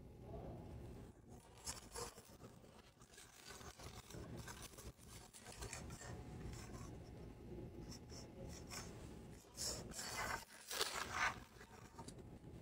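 Foil and paper wrappers crinkling and rustling as small Mini Brands miniatures are unwrapped by hand, in scattered bursts with a louder run of crackles near the end.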